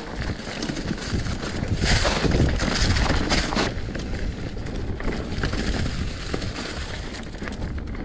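Mountain bike rolling down a dirt singletrack covered in dry leaves: tyre noise through the leaves and rattle from the bike over the bumps, with wind rushing past the microphone. The leaf noise grows louder from about two to three and a half seconds in.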